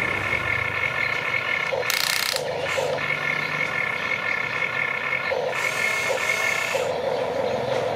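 Electric gear motors of a Huina RC excavator whining steadily as the boom and bucket work. Two louder hissing stretches come about two seconds in and again from about five and a half to seven seconds.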